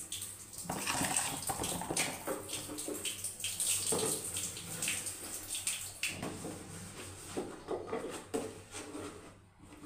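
Water from a tap splashing while a clear plastic storage container is rinsed and rubbed by hand in a sink, with irregular knocks and scrapes of the plastic.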